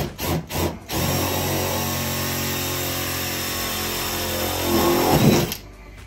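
Ryobi cordless drill-driver boring into a cabinet panel: three short spurts of the trigger, then about four seconds of steady running that swells just before it stops.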